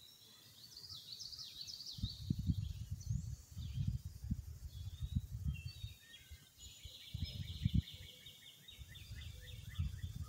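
Wild birds singing and chirping from the trees, with a rapid trill of repeated high notes starting past the middle and running on. Irregular low rumbles from the microphone sit underneath.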